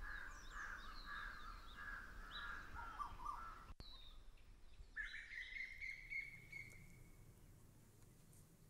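Faint birds chirping and calling: quick, falling chirps in the first few seconds, then one longer call lasting about two seconds near the middle.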